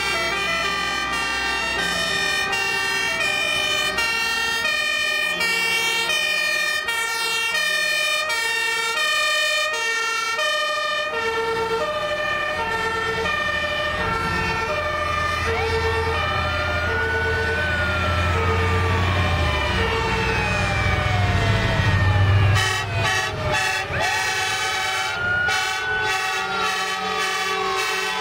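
Fire engine sirens from a convoy of passing fire trucks: a two-tone hi-lo siren switching about once a second, joined about halfway by wailing sirens sweeping slowly up and down. Underneath, the diesel engines of the trucks rumble as they drive by, loudest a few seconds before the end.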